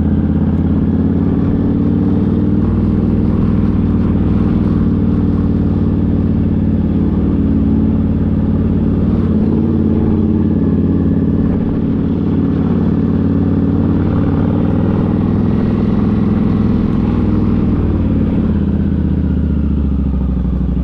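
Cruiser motorcycle engine running steadily under way, heard from the rider's seat, with small rises and falls in pitch as the throttle changes.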